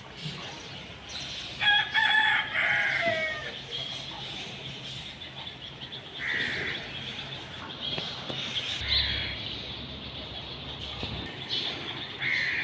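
A rooster crows once, a long call of about two seconds that falls in pitch at its end. A few shorter bird calls follow later, over steady chirping of small birds.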